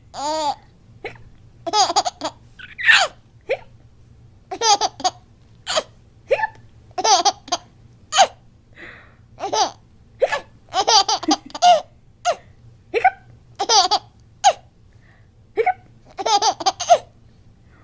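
A baby laughing in a dozen or so short bursts, with hiccups sounding between the bursts.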